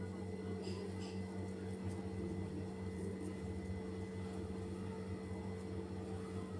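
Steady low electrical hum made of a few constant tones, with a couple of faint soft ticks about a second in.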